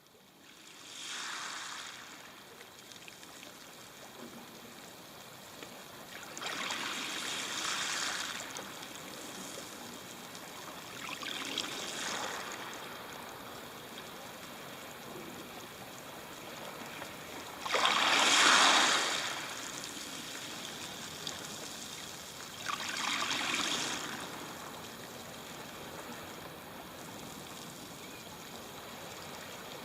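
Sea waves washing up a stony shore in five surges about five to six seconds apart, each a rushing hiss that fades into a steady trickling wash. The fourth surge, about two-thirds of the way through, is the loudest.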